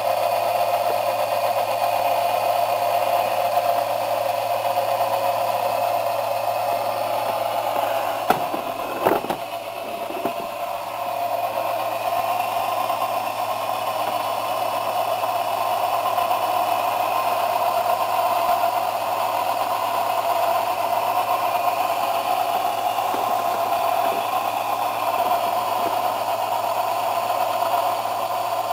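Unimat 3 mini lathe running steadily, its small motor and belt drive humming while it turns a cast-iron camshaft blank. A brief clatter of knocks comes about nine seconds in.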